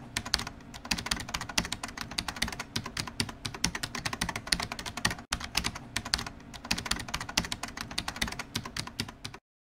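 Rapid computer-keyboard typing clicks, a dense run of keystrokes with a brief break about five seconds in, stopping abruptly just before the end.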